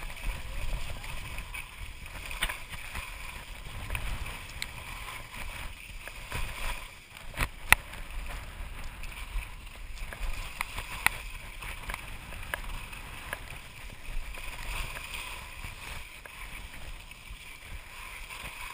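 Skis sliding and scraping over groomed snow at speed, a steady swishing hiss, with wind rumbling on the microphone and a few sharp clicks along the way.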